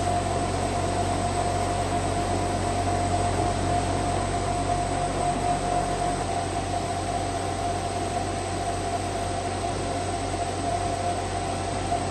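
CNC machine running steadily: a constant whine over a low hum and a noisy hiss.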